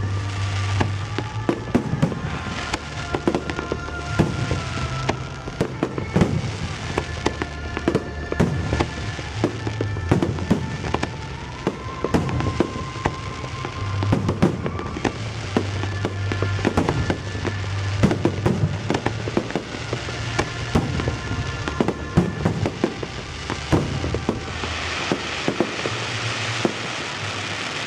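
Fireworks going off in rapid succession, many sharp bangs and pops over a music soundtrack with a pulsing bass. Near the end a dense crackling takes over.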